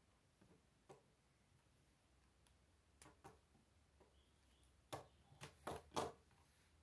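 Plastic K'nex pieces clicking and knocking as they are handled, with a few sharper plastic knocks about five to six seconds in as the model is set down on a wooden table.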